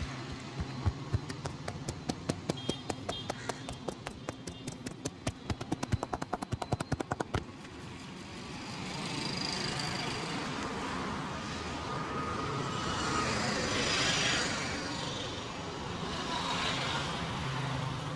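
A quick run of sharp slaps that speeds up and stops suddenly about seven seconds in: the percussive hand tapping of a head massage. After that, steady street and traffic noise.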